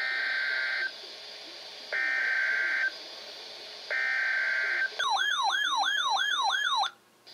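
Emergency Alert System header: three short bursts of digital SAME data tones, each just under a second long and about a second apart, followed by a wavering siren-like alert tone that rises and falls about two and a half times a second for two seconds and then cuts off suddenly.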